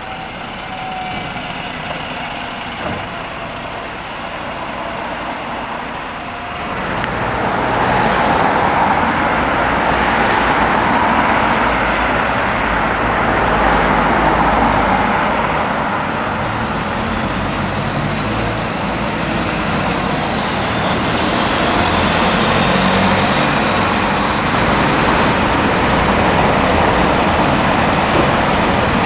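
Diesel single-deck buses running close by with road traffic: a bus moving past at first, then, from about seven seconds in, a louder, steady nearby bus engine and tyre noise on a wet road.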